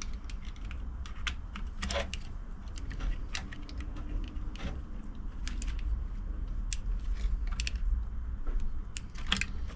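Irregular small clicks and taps of plastic and metal parts being handled as a new electric fuel pump is fitted into the fuel pump assembly, over a low steady rumble.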